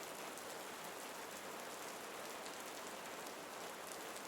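Steady rain: an even, quiet hiss with a few distinct drops ticking through it.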